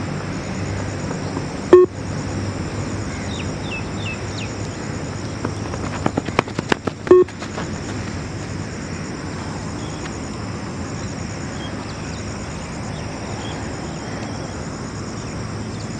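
Yo-Yo test audio beeping: two short, loud single beeps, about two seconds in and about seven seconds in, pacing the runners' 20 m shuttles. Steady background noise runs throughout, with a cluster of sharp clicks and knocks just before the second beep.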